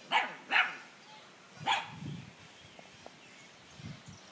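A dog barking three short, sharp barks: two in quick succession, then a third about a second later.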